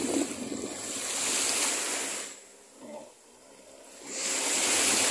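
Small waves washing in over shallow water at the shoreline, in two surges of hiss a few seconds apart.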